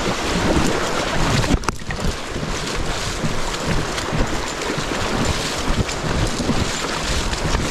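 Steady rushing of a river rapid, with wind buffeting the microphone.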